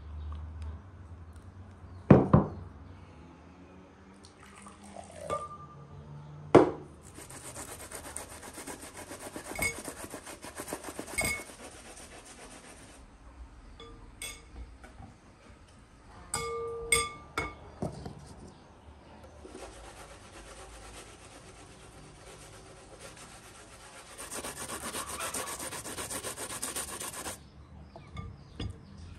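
Rasping strokes of food being grated on a metal box grater, in two long stretches. There are a couple of sharp knocks, louder than the grating, before the first stretch.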